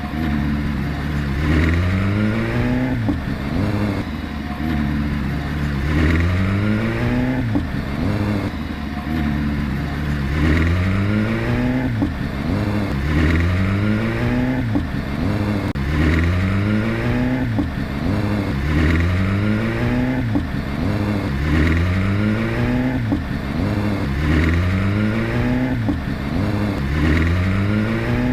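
BMW engine running with its pitch rising and falling over and over in a regular cycle, about once every one and a half seconds. This repeating surge is the fault the owner is showing.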